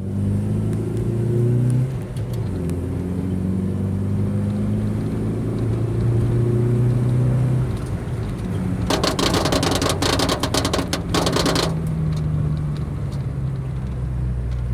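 Chevrolet Meriva driving at speed with a steady running hum. For about three seconds past the middle comes a rapid rattling flutter: a loose roof trim strip vibrating in the wind and slapping the roof, a noise that appears only above about 80 km/h.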